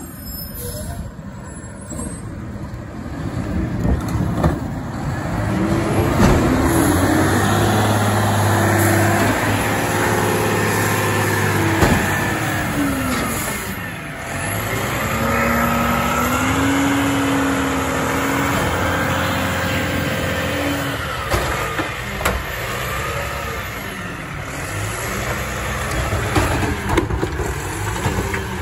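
Automated side-loader recycling truck working its hydraulic arm: the diesel engine revs up while the arm lifts, tips and lowers a wheeled recycling cart, with a whine that rises and falls. This happens in two surges, about five seconds in and again a few seconds after the midpoint, then the engine settles back.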